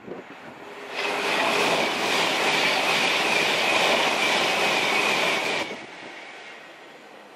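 Virgin Class 390 Pendolino electric train passing at speed. A loud rush of wheel and air noise comes in suddenly about a second in and drops away near six seconds, with a high steady whine running through it.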